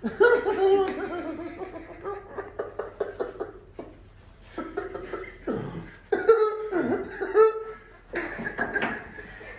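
A person laughing in several bursts, with drawn-out voiced sounds between them, as a reaction to a chiropractic adjustment.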